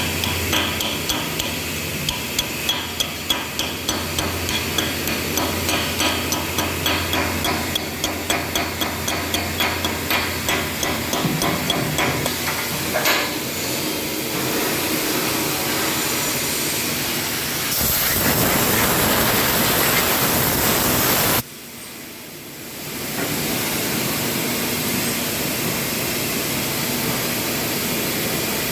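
CO2 (MIG) welding arc crackling and hissing. In the first half it goes in a quick even rhythm of pops, about two to three a second. It then runs as a steady hiss that grows louder for a few seconds, cuts off suddenly, and starts again after a short break.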